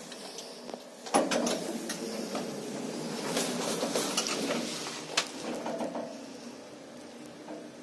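Schindler R series lift in operation: a clunk about a second in, then a steady hum with several sharp mechanical clicks, easing off near the end.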